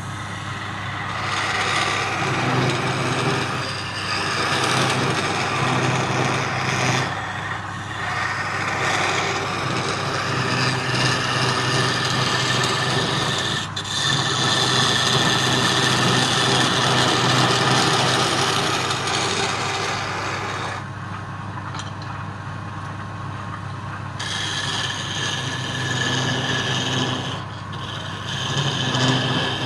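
Wood lathe running with a steady hum while a tool scrapes against the spinning wood in long spells, broken by short pauses.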